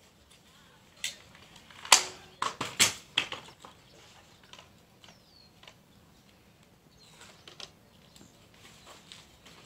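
Graco Modes 3 Lite DLX stroller frame being unfolded: a quick run of clicks and clunks between about one and three seconds in as the frame swings open and locks, then only a few faint ticks.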